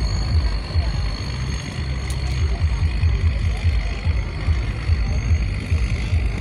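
Barge tug's diesel engine running steadily, a low uneven throb, with a faint steady high whine above it.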